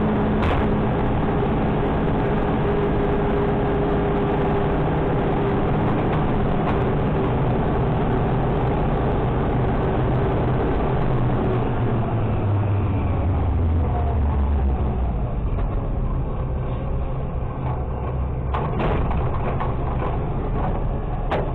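Automated side-loader garbage truck's engine and body running and rattling as the truck drives, heard from inside the hopper. The sound thins out in the last third, with a couple of sharp knocks near the end.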